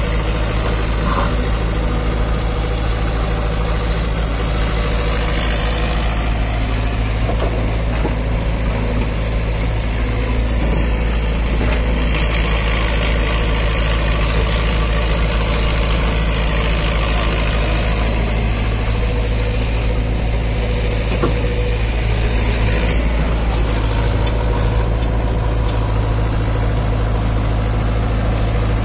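Hitachi crawler excavator's diesel engine running steadily with a deep hum. In the middle stretch a harsher hiss and scraping joins it as the bucket digs into loose dry soil.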